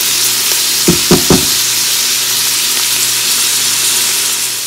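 Sliced onions sizzling in hot oil in an Instant Pot's stainless steel inner pot on sauté mode, a steady frying hiss. About a second in come three quick knocks close together, typical of the spatula hitting the pot while stirring.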